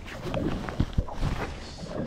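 Small waves slapping against the hull of a drifting boat, with wind noise and a few low knocks about halfway through.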